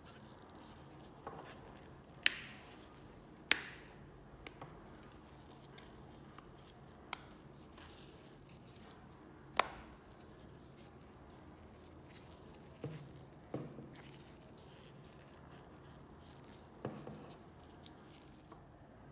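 Scattered sharp clicks and taps of small tools and phone parts being handled during a phone repair, about a dozen at irregular intervals. The sharpest come about two, three and a half and nine and a half seconds in.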